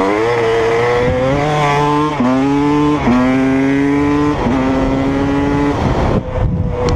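Honda CR250 two-stroke dirt bike engine accelerating hard: the revs climb and drop sharply at each gear change, about four times, with wind rush over the microphone. Near the end the throttle briefly eases off and the engine settles at steadier revs.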